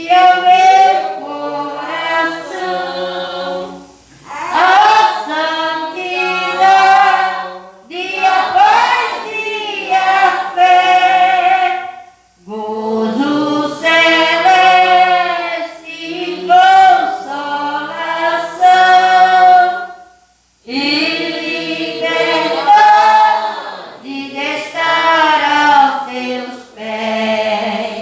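A Portuguese gospel hymn of gratitude sung by female voice without accompaniment, in long sung phrases broken by short breaths.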